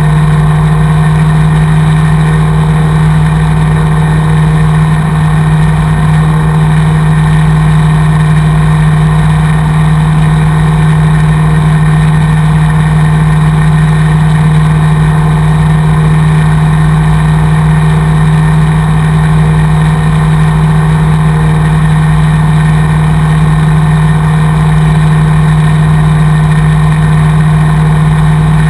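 Single-engine Cessna's piston engine and propeller droning steadily in level flight, heard loud inside the cabin: one strong low hum that holds a constant pitch, with a wide rushing noise above it.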